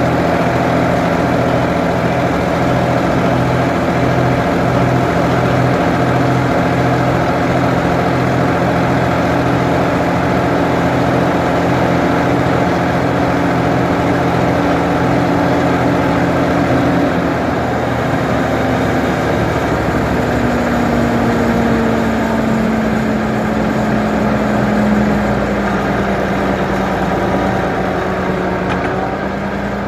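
Ford 550 backhoe's engine running steadily, its note shifting a little over halfway through and then slowly rising and falling.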